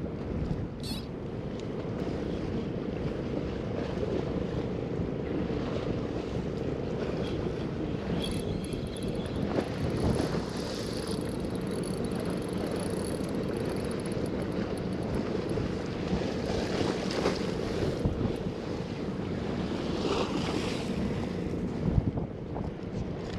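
Steady seaside background noise at the water's edge: a low rumble with a faint even hum, broken now and then by light clicks and rustles.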